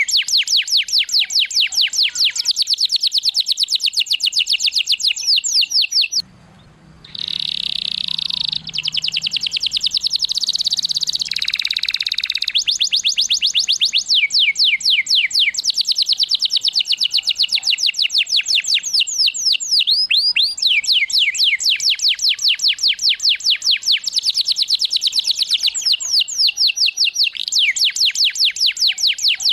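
Canary singing: long rolls of fast repeated chirps, each a quick falling note. The song breaks off briefly about six seconds in, then carries on with some held whistled notes before the rapid rolls return.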